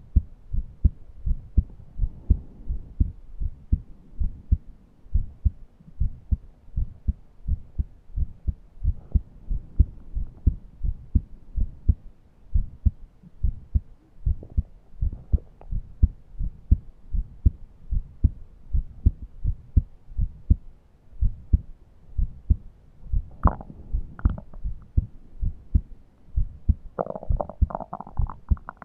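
A person's heart beating in a steady, regular rhythm, heard close to the chest as low lub-dub thumps. Near the end comes a wheezy breath with a whistling, wavering pitch, a sign of narrowed airways in someone who is short of breath and cannot breathe in deeply.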